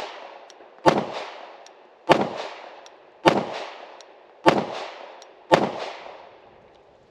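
Kimber Ultra TLE II, a compact 3-inch-barrel 1911 in .45 ACP, fired five times at a slow, even pace about a second and a quarter apart, each sharp report trailing off in echo.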